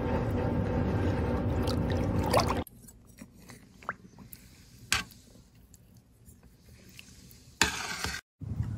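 Liquid sounds from a weld dye bath: a steady rushing noise for the first two and a half seconds, then quieter sloshing with scattered drips and clicks as cotton cloth and plant material are moved in the liquid. There is a short louder burst near the end.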